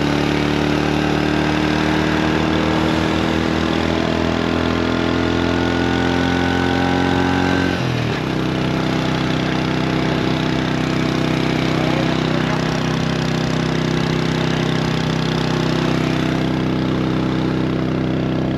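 Vehicle engine running on the move, its pitch climbing slowly for about eight seconds, then dropping suddenly and holding steady, with road and wind noise throughout.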